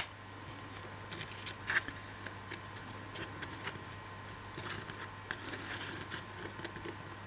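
Light scattered clicks and taps of laser-cut MDF pieces being handled and slotted together on a work surface, over a steady low electrical hum.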